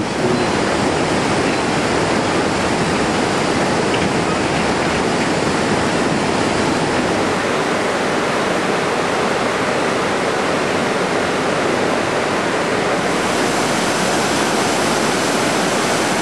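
Waterfall and mountain stream rushing steadily, turning brighter about thirteen seconds in.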